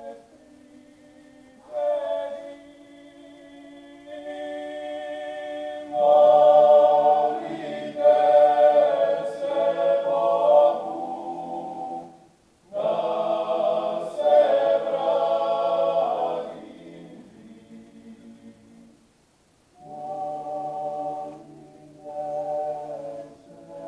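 Male klapa ensemble singing unaccompanied in close harmony: held chords in phrases, louder in the middle, with two short pauses and a softer phrase near the end.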